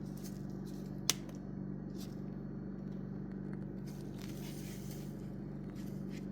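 Cut cucumber pieces being handled and tossed: soft rustles and scrapes, with one sharp click about a second in, over a steady low hum.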